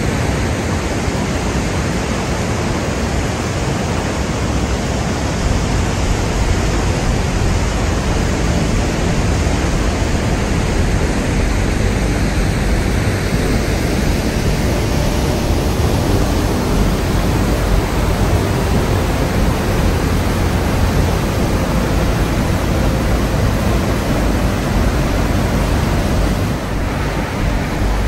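Waterfall: a loud, steady rush of falling water with no break or change.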